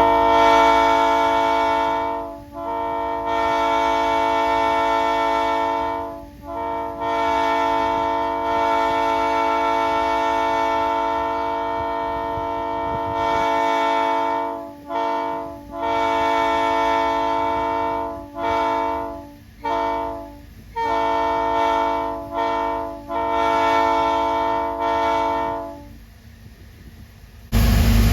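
Locomotive air horn blown on compressed air, several steady notes sounding together as a chord in a string of blasts: a few long ones, then a quicker run of shorter ones. It stops about 26 s in, and a louder blast starts just before the end.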